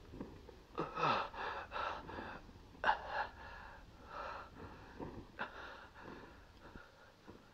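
A man breathing hard in ragged gasps, one short breath after another, with a few brief voiced moans among them.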